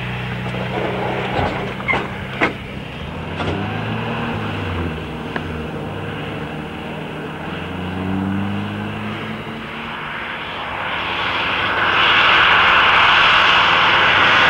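Range Rover ambulance's engine running, with a few sharp clacks about two seconds in. Near the end a louder, steady rushing of tyres on the wet road builds as the vehicle goes by.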